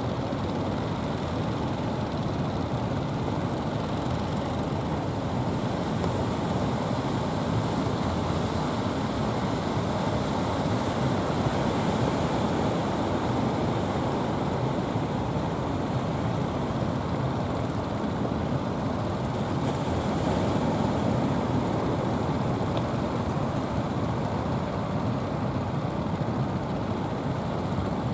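Steady rushing noise of sea surf and wind, mixed with the running motors of outrigger fishing boats heading out through the waves.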